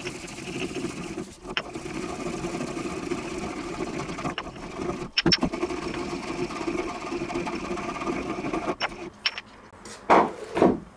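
Pestle grinding dried herbs, spices and brown sugar in a mortar: a steady gritty rubbing with a few sharp clicks. The grinding stops about nine seconds in, followed by a couple of knocks near the end as the mortar is emptied.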